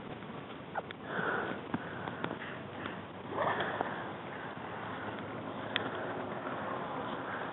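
Breathing close to the microphone, with two louder, rushing breaths about a second in and just after three seconds, over faint rustling and ticks of footsteps on dry pine needles.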